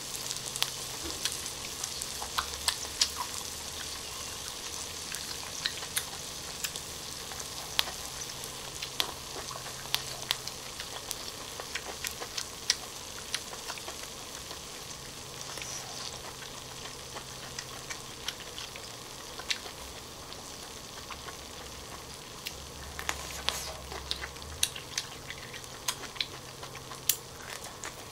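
Asparagus and melted cheese sizzling on a hot grill pan in a steady hiss, with many sharp crackles and clicks. Close-up chewing and crunching of asparagus runs alongside.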